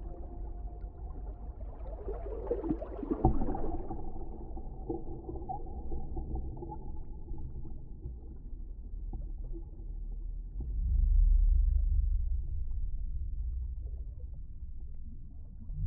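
Designed deep-underwater ambience: a steady deep rumble under faint held tones. A burst of bubbling and crackling comes about two to four seconds in, and the low rumble swells up around eleven seconds.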